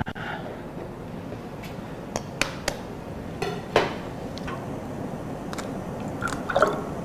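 Sharp clicks and taps: an egg being handled and cracked on the nonstick mould of a gas eggroll maker. There are several between two and four seconds in and a pair near the end, over a steady hiss from the gas burner and hot oil.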